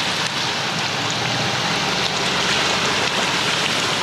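Range Rover driving slowly through a muddy, water-filled track: a steady rush of tyres through water and mud over the low run of its engine.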